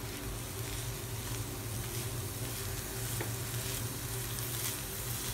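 Chopped cheera (red amaranth) leaves and scrambled egg sizzling gently in a nonstick frying pan on a low flame, uncovered, while a wooden slotted spatula stirs them: soft scrapes and rustles over a steady hiss, with a low steady hum underneath.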